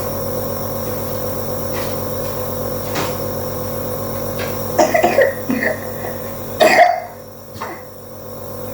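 Compressor nebulizer running with a steady hum while a child coughs: a short run of coughs a little under five seconds in, then one stronger cough near seven seconds. The hum grows quieter for about a second after the last cough.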